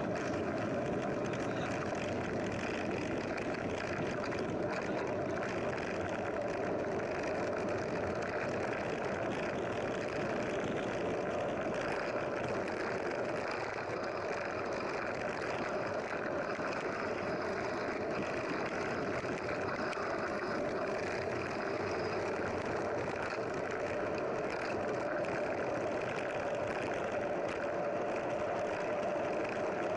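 A steady vehicle engine drone, even and unbroken, with a constant hum running under the noise.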